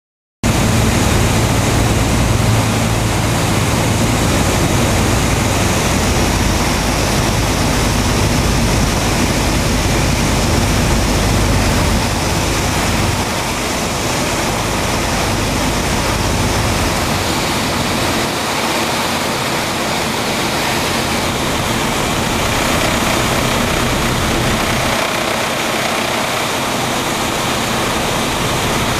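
Piper PA-28's engine and propeller running steadily with wind rush, heard inside the cockpit as a loud even noise. The low rumble thins about 13 seconds in.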